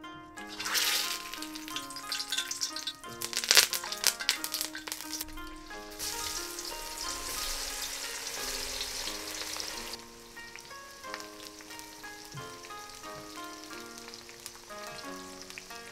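Hot oil in a steel kadhai sizzling and crackling as sliced star fruit goes in, loudest in the first few seconds, then a steady fry that drops away about ten seconds in. Plucked-string background music plays throughout.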